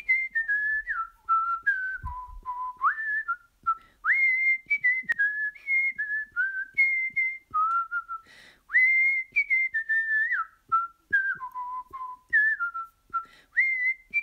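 A person whistling a cheerful tune by mouth: clear single notes that step up and down, some short and some held, with small slides up into some of the notes.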